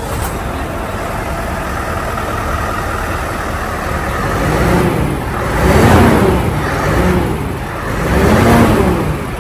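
Scania 660 S truck's V8 diesel engine running just after start-up, idling, then revved up and down in two bursts in the second half.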